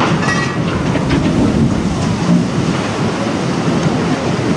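Heavy, continuous rumble of a cargo ship's hull sliding sideways off the launch ways in a side launch, with the rush of water as it drops into the harbour.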